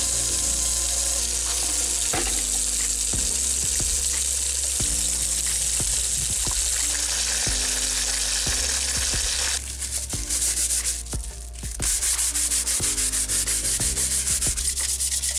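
Old radio's case parts being scrubbed and washed: a steady hissing scrub that breaks off about ten seconds in and comes back as quick, even strokes. Soft background music underneath.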